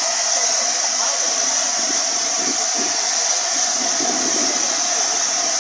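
LNER A4 three-cylinder Pacific steam locomotive 60007 moving slowly toward the listener, with a steady hiss of escaping steam. Quiet voices murmur underneath.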